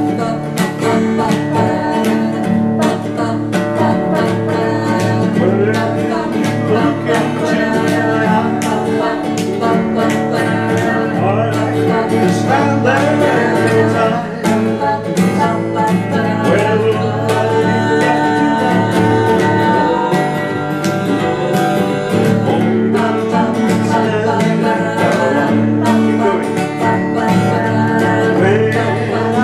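Acoustic guitar strummed in a steady rhythm, with voices singing a song over it.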